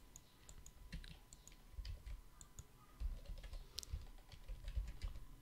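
Faint computer keyboard keystrokes, a few scattered presses and clicks at an irregular pace, as keyboard shortcuts are entered.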